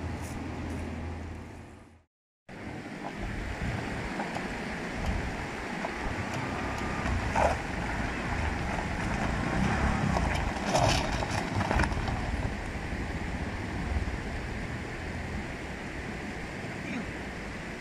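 Engine of a three-wheeled mototaxi running as it drives up a dirt road, over a steady rushing background. The sound drops out completely for a moment about two seconds in.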